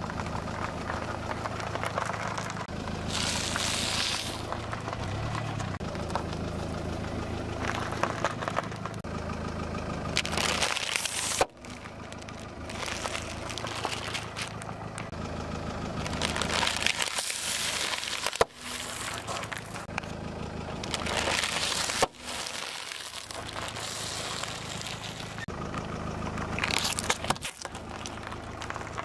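A car tyre rolling slowly over snack bags and soft food: crinkling, crackling and crunching of chips and plastic packets being crushed, over a car engine idling steadily. The sound breaks off abruptly a few times between crushes.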